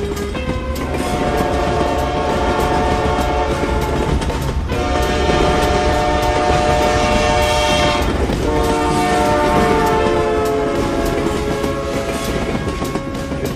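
Train horn sounding three long chord blasts over the steady clickety-clack of wheels on rail joints.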